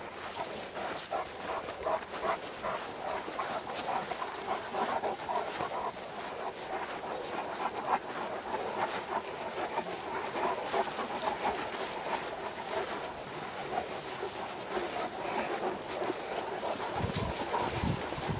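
A pack of Great Danes moving about on grass close by, with panting and rustling full of small ticks. A few low thumps come near the end.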